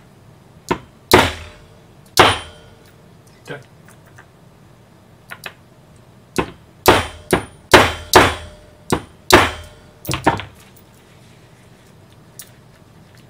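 A hatchet used as a hammer strikes a metal snap fastener through leather on a desk, setting the snap. About a dozen sharp blows come in uneven runs, each with a brief ring, and stop about two-thirds of the way through.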